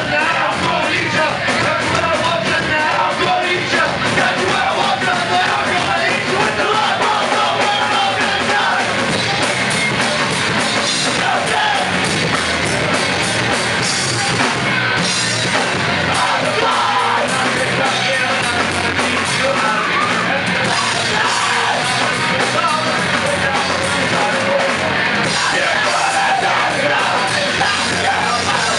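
Live punk rock band playing loud and fast: distorted electric guitar and drum kit under shouted vocals.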